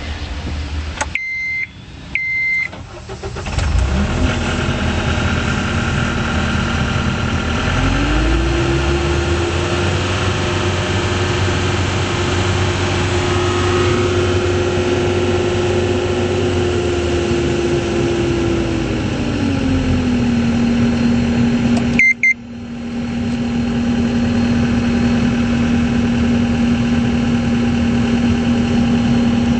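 Two short beeps, then the John Deere 320D skid steer's diesel engine starts about four seconds in and idles. About eight seconds in it is raised to a higher steady speed, held for about ten seconds, then brought back down to idle. Another short beep and a brief break come near twenty-two seconds, followed by steady idling.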